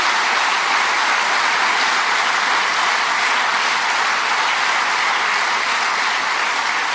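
Audience applauding, a dense and even clapping.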